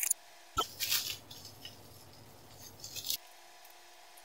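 Small sharp clicks, then about two and a half seconds of rustling from small items and packaging being handled close to the microphone, which stops abruptly.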